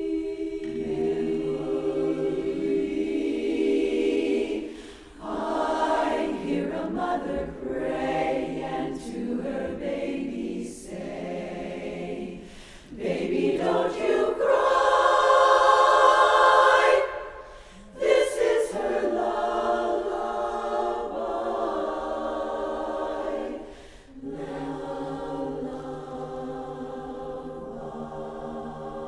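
A cappella chorus singing a song in phrases with brief breathing pauses between them, swelling to its loudest, brightest passage about halfway through before settling back.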